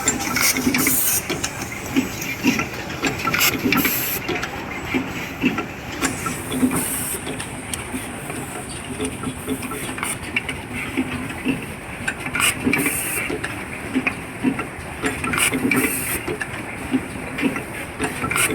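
Automatic microphone wire soldering machine running: short, irregular hisses and clicks over a steady mechanical hum.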